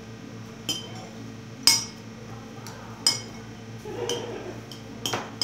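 Cutlery clinking against a plate while eating: about five sharp metallic clinks at irregular intervals, the loudest about a second and a half in.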